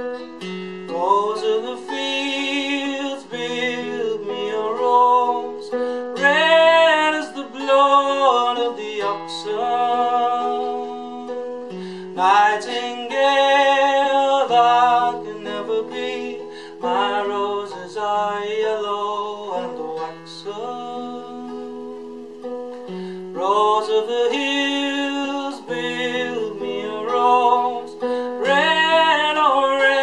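Male voice singing a slow folk song, accompanying himself on a classical guitar. The guitar is already playing when the voice comes in about a second in.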